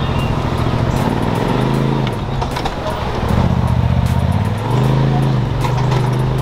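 Side-by-side UTV engine running while the vehicle drives a rough dirt trail, revving up about one and a half seconds in and again near five seconds, easing off in between. Scattered short clicks and knocks sound over the engine.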